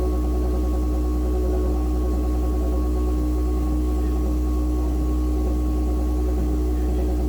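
Loud, steady drone in the wall plumbing of a basement bathroom after the toilet is flushed, a low rumble with several held tones, like a plane taking off. Its cause is not known, and a plumbing company says it may be normal.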